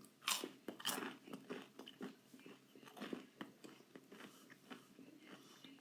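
A person chewing food close to the microphone, with irregular soft crunching and mouth clicks, a couple of them louder in the first second.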